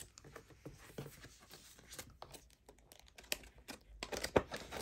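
Paper being handled: light crinkling and rustling with small irregular ticks, busier and louder near the end.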